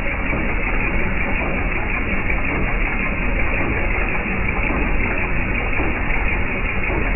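Jeep TJ Wrangler's 4.0-litre inline-six engine running steadily.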